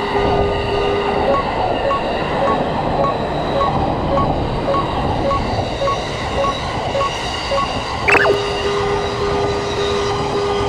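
A train passing over a Japanese level crossing, its running noise loud and steady over the crossing's electronic warning bell. About a second in, the bell's steady beat gives way to a higher ding repeating about twice a second. About eight seconds in, a brief sharp high squeal sounds and the original beat returns.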